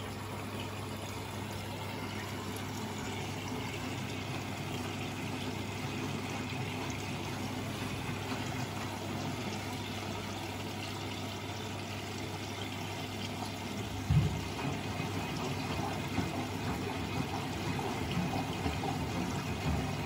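Miele Novotronic W925 front-loading washing machine taking in water for its last rinse: water pours into the drum over a steady low hum that stops about two-thirds of the way through. After that the drum water sloshes with irregular low knocks.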